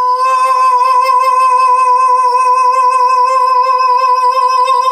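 A man's voice holding one long, high sung note, steady in pitch with a slight waver.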